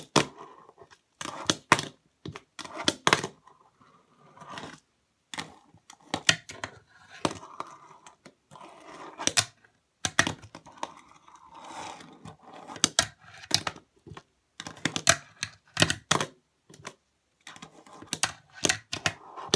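A fingerboard doing tricks on a wooden table and ledge: sharp, irregular clacks of the board's tail popping and landing, often two or three in quick succession, with the soft rolling of its small wheels between them.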